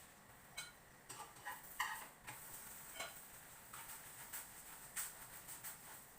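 Scattered light clicks and clinks of kitchen utensils against cookware, a dozen or so irregular taps, some with a brief metallic ring.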